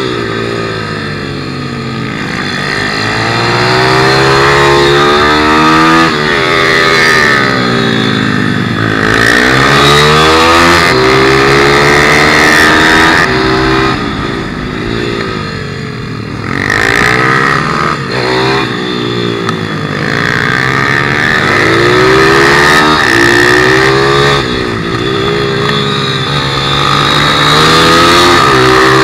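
Single-cylinder four-stroke 160cc pit bike engine at racing speed, heard onboard: the revs climb through the gears and drop off into each corner, over and over.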